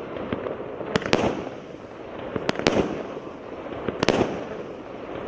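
A 36-shot, 0.8-inch consumer firework battery (cake) firing, sharp bangs coming in pairs about every one and a half seconds over a continuous crackle.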